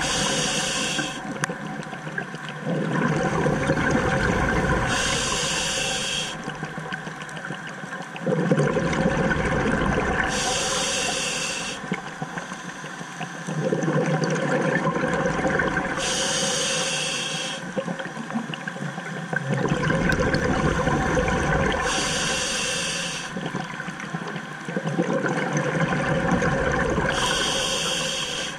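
Scuba diver breathing through a regulator, heard underwater: a short hiss as each breath is drawn through the demand valve, then a longer rush of exhaust bubbles on the exhale, repeating about every five and a half seconds.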